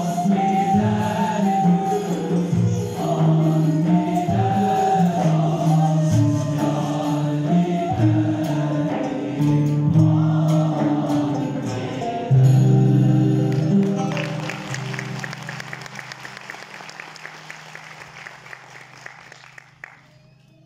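Male choir singing with a Turkish classical ensemble of ney, kanun and oud. About twelve seconds in the song settles on one long held low note that fades away, with a fast, even rattle above it.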